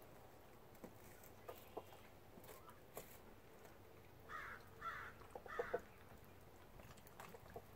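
Domestic hens giving three short, soft calls in quick succession about halfway through, with a few faint taps scattered around them.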